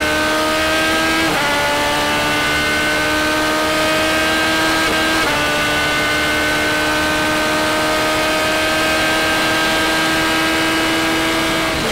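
Open-cockpit race car's engine at full throttle, heard from on board, its pitch climbing steadily. It drops sharply twice, about a second in and about five seconds in, as the car upshifts while accelerating down a straight.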